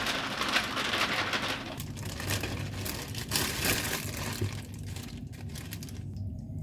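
A plastic sealable bag of marinated chicken crinkling and rustling as it is handled. The sound stops abruptly about six seconds in.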